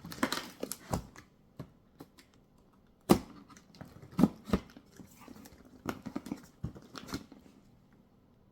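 Cardboard box and packaging being handled while unpacking a bike repair stand: rustling with a string of short, sharp knocks, the loudest about three seconds in and just after four seconds.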